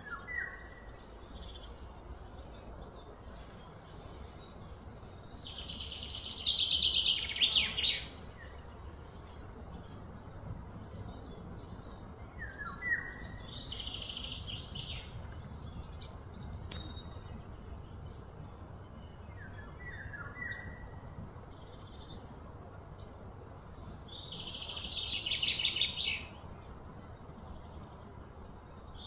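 Wild birds calling: a few short, falling chirps spread apart, and twice a longer, rapid high trill that swells for a couple of seconds and stops abruptly, over a steady low background rumble.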